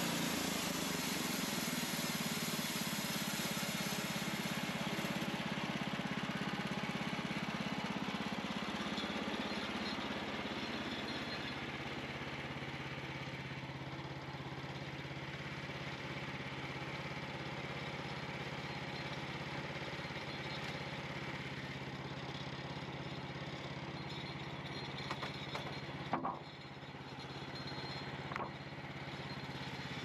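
Gas engine of a Norwood LumberMate LM29 portable bandsaw mill running steadily, with the band blade's hissing cut through poplar fading out over the first several seconds as the cut ends. A couple of sharp knocks near the end.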